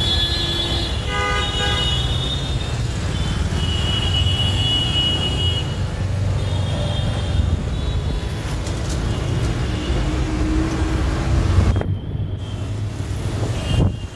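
City street traffic: a steady rumble of engines and road noise, with vehicle horns honking several times, most heavily in the first two seconds.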